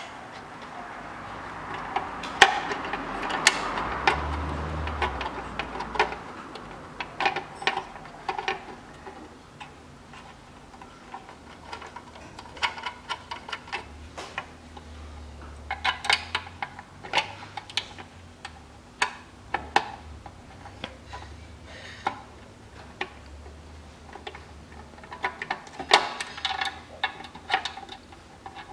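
Light metallic clicks and ticks in short, irregular runs as the small bolts of a new automatic transmission oil filter are threaded in by hand on a 2000 Toyota Vitz. A soft rushing noise fills the first few seconds.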